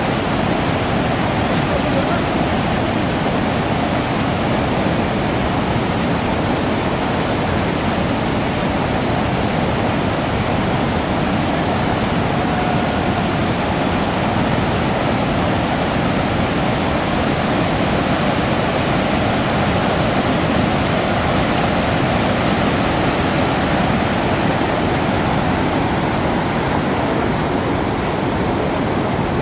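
Water pouring over a dam spillway and rushing through a shallow rocky river: a loud, steady rush that does not let up.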